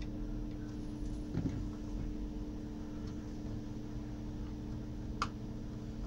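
Small screwdriver prying at the glued plastic seam of a laptop power adapter's case, giving a few faint clicks about a second and a half in and a sharper click near the end. A steady electrical hum runs underneath.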